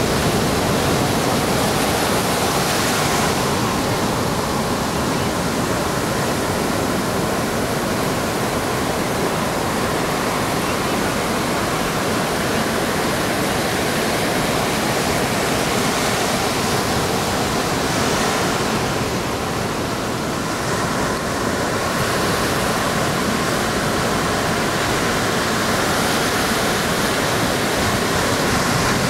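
Small ocean waves breaking and washing up a sandy beach: a continuous rush of surf that swells a little now and then.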